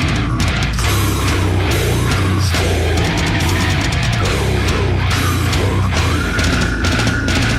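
Heavy metal song with distorted electric guitar and dense drumming, ending on a held note and then stopping abruptly.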